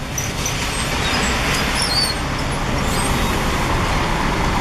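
Intercity coach bus pulling in, its engine rumbling under steady tyre hiss on wet pavement, growing louder as it comes closer. A few faint high squeaks sound over it.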